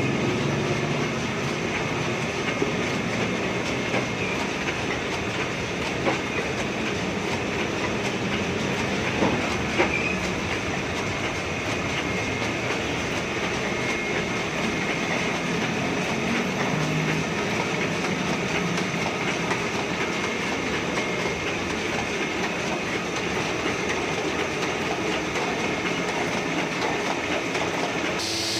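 Heidelberg GTO 52 sheet-fed offset printing press running steadily while printing paper. It makes a dense, rapid mechanical clatter with a few sharper clicks.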